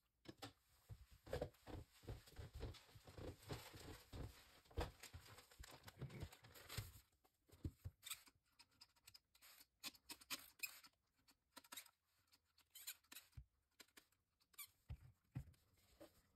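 Plastic squeeze bottle of acrylic paint being squeezed to drizzle paint, faint: a dense run of crackles and clicks for about the first seven seconds, then scattered single clicks.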